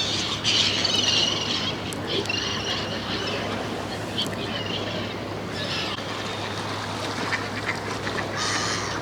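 Ducks quacking in several bursts of calls, most in the first second and a half and again near the end, over a steady low hum.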